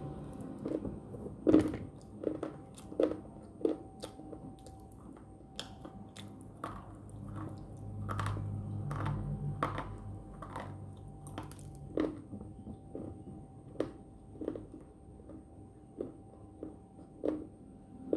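Coloured slate pencil sticks being bitten and chewed: a series of short, sharp, irregular crunches, the loudest about a second and a half in.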